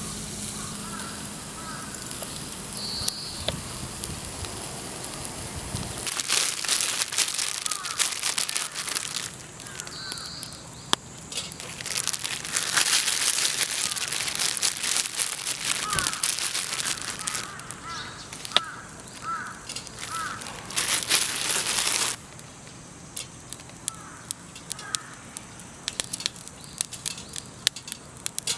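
Birds calling around the campsite, with three loud stretches of hissing, crackling noise that start and stop abruptly.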